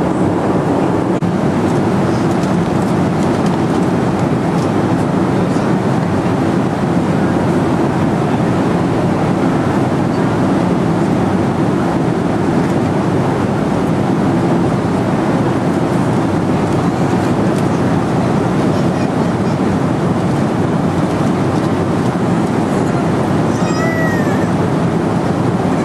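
Steady low rushing drone of an airliner cabin, the noise of the jet's engines and air system.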